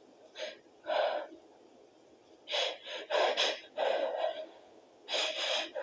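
A person gasping and stifling sneezes: short, sharp, breathy bursts coming in quick clusters, the catching breaths of a sneeze being held back.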